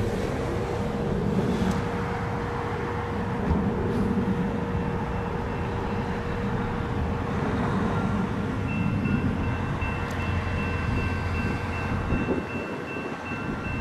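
A passenger train running on the track with a steady rumble. About two-thirds of the way in, a fast, evenly repeating high ringing tone starts.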